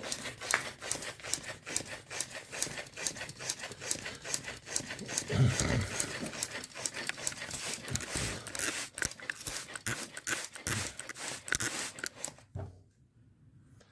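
Hand bicycle pump worked in rapid, repeated strokes, each one an airy hiss, forcing air into a car radiator to pressure-test it for leaks. The pumping stops suddenly near the end.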